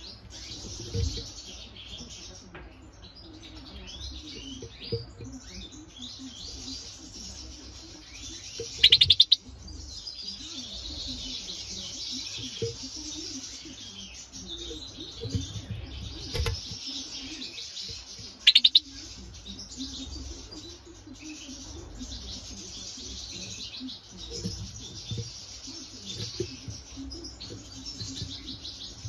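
European goldfinch singing a continuous, rapid twittering song, broken by two very loud short rattles, one about nine seconds in and one about eighteen seconds in.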